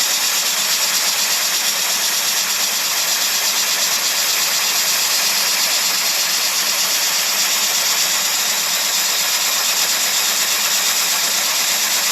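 Steady white-noise hiss, bright and even, with most of its weight in the high range and little bass.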